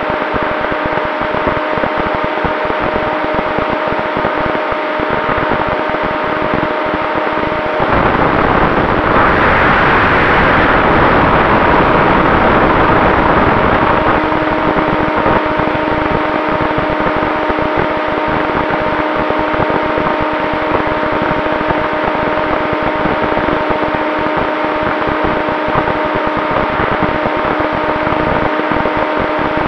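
Brushless electric motor and propeller of an RC plane (a Turnigy XP 3536 1000 kV outrunner) running steadily in flight, a whine with several steady tones, heard through the onboard camera. Between about 8 and 14 seconds in a louder rushing noise swamps the whine, after which the tones return slightly lower.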